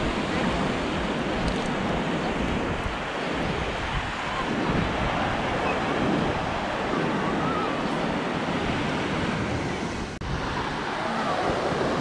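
Ocean surf washing in along the shore, with wind buffeting the microphone. The sound drops out for an instant about ten seconds in.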